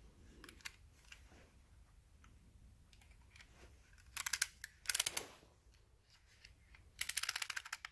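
Snap-off blade utility knife being worked: the blade slider ratchets out and back in quick runs of clicks, a short run about four seconds in and a longer one near the end, with light handling between.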